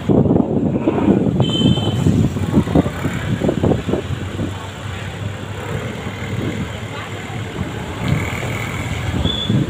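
Ride on a motor scooter: its engine running, with wind buffeting the microphone in gusts. A short high beep sounds about a second and a half in.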